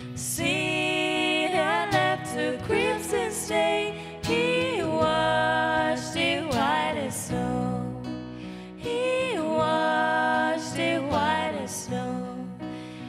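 Worship music: a sung lead vocal line over instrumental accompaniment holding sustained chords.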